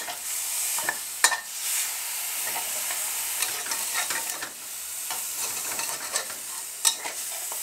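Minced pork and red curry paste sizzling in oil in a wok, stirred and scraped with a metal spatula, with sharp clinks of the spatula against the pan about a second in and near the end.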